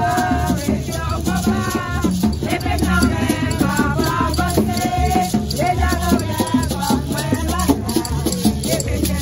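A pair of maracas shaken in a steady rhythm under voices singing a chant together.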